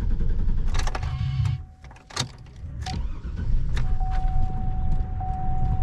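GMC truck being started: the starter cranks for about a second and a half, stops briefly, then cranks again, and the engine catches on the second try and keeps running.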